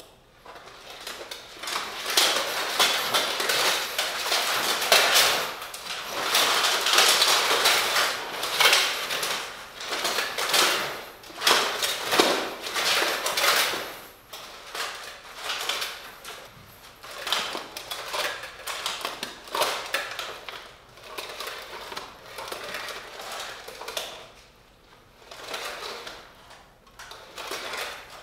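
Stainless steel plate armour and mail clinking and rattling as the wearer moves, turns with a sword and lifts his arms. The clatter is dense for the first half and turns lighter and more scattered after about fourteen seconds.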